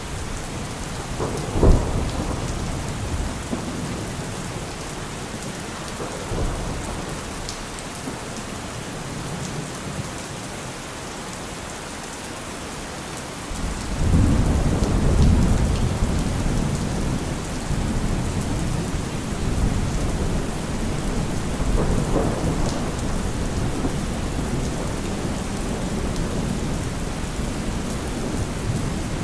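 Steady heavy rain with thunder: a sharp thunderclap about two seconds in, then a long deep rumble of thunder that swells up about halfway through and keeps rolling under the rain.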